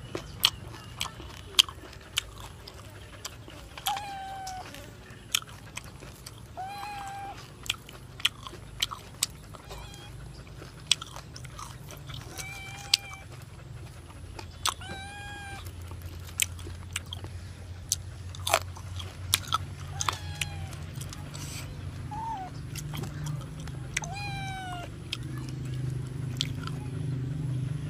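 Close-up eating sounds: sharp crunches and mouth clicks of biting and chewing crisp grilled pig head, many times over. A small animal gives short pitched calls that bend up and down, over and over, and a low hum grows louder in the second half.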